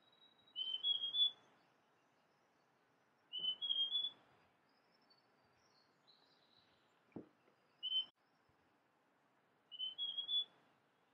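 Large niltava singing: short phrases of three or four clear whistled notes stepping up in pitch, given every few seconds, with a lone single note between the second and third phrases.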